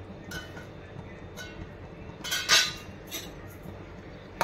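Metal pot lid and metal serving spoon clattering and clinking against the cooking pot and stovetop, with the loudest clatter about halfway through and a sharp clink at the end.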